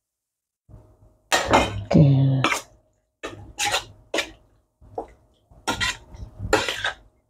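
Metal spoon scraping and clinking against a stainless steel bowl while sliced raw chicken is stirred through an oyster-sauce marinade. The strokes are irregular, with the loudest scraping clatter between about one and a half and two and a half seconds in.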